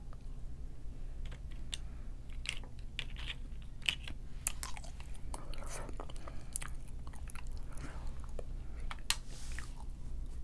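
Fingers with long nails picking apart boiled seafood, making a scatter of small, irregular clicks and crackles of shell.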